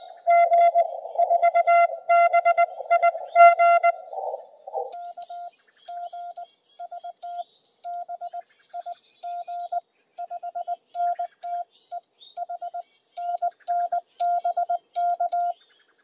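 Morse code (CW) beeps from a Yaesu FTDX10 transceiver: for about the first four seconds a received signal sits in a narrow band of receiver hiss, then from about five seconds in the beeps come clean, without hiss, as the operator's own keyed sidetone sent on a paddle key, in dots and dashes with short gaps.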